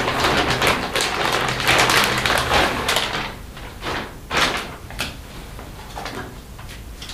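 Clear plastic bag crinkling and rustling as it is pulled open and off a pair of leggings. It is dense for the first three seconds, then comes in a few separate rustles.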